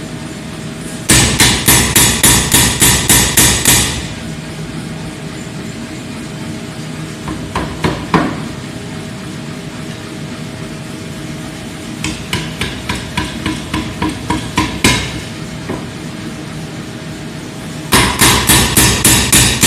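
Power hammer forging, in runs of rapid, even blows at about four a second. Some runs are short and light, and one builds in force. A steady hum carries on between the runs.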